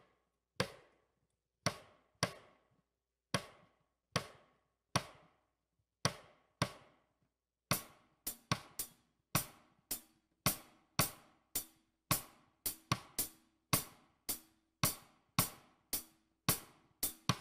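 Sharp wooden drumstick clicks playing the son clave 3-2 rhythm, five strokes over two bars, against a metronome click. The strokes come sparse and uneven at first and grow denser from about eight seconds in.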